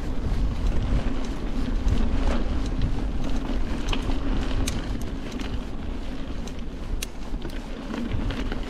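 Mountain bike riding along a dirt track: wind buffeting the camera microphone, a steady rumble from the tyres, and scattered clicks and rattles from the bike over the bumps.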